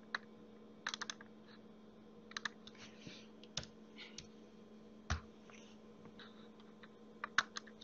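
Computer keyboard keystrokes and mouse clicks, sparse and irregular, with a quick cluster about a second in and single clicks after. A faint steady hum runs underneath.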